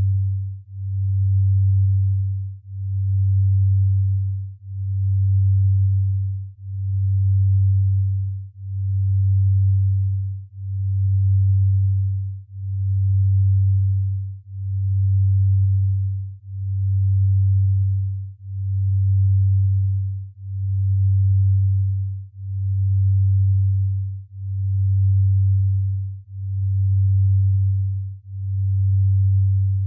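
Low, pure synthesized tone that swells and fades evenly about once every two seconds: a brainwave-entrainment sleep tone, its slow pulse in the delta range.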